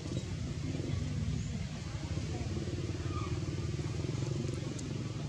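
A motor engine running steadily as a low drone.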